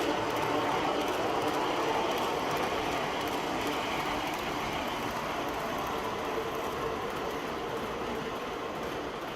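R-40 subway train running between stations: a steady rumble and rail noise with a faint motor hum, easing slightly in loudness toward the end.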